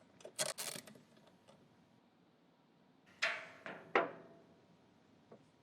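Scattered metallic clicks and clinks from a socket wrench loosening the 10 mm bolts on a floor scrubber's filter bracket: a few light clicks at first, then two sharper ringing clinks about three and four seconds in.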